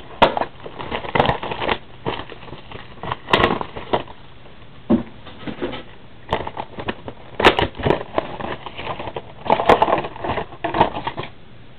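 Trading-card boxes and their cardboard and plastic packaging being handled: irregular clicks and short scraping, crackling bursts.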